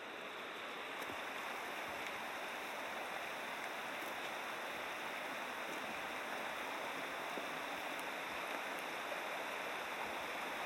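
Steady rushing of stream water.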